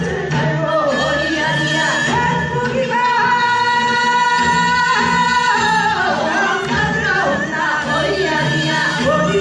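Music with singing. One note is held steady for about two and a half seconds in the middle.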